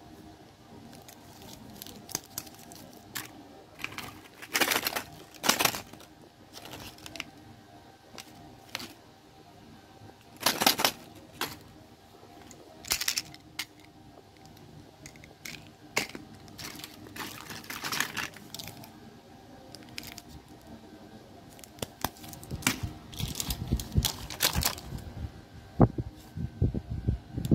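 Plastic candy wrappers and packaging crinkling and rustling as they are handled, in short irregular bursts, with a few low knocks near the end.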